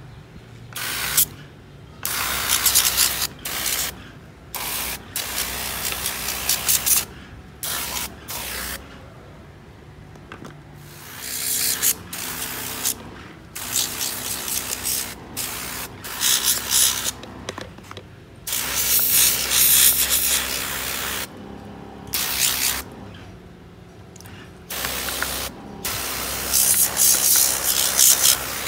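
Water jet from a handheld spray gun blasting the tracks and undercarriage of a 1/14-scale RC excavator. It hisses in repeated on-and-off bursts of a second or a few seconds each, with short pauses between.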